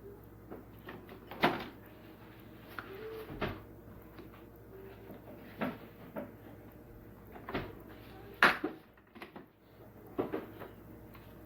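A series of scattered knocks and clicks, like objects being handled and set down, about six in all; the two loudest come about a second and a half in and about eight and a half seconds in.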